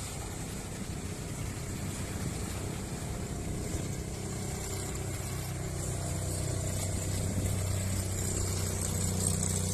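Engine of a small homemade wooden racing boat running at speed over choppy water, growing louder and steadier as the boat comes close, over a hiss of wind and spray.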